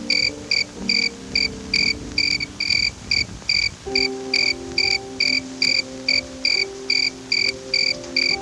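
Evenly repeated high chirps, cricket-like, about two and a half a second, over soft background music with held chords.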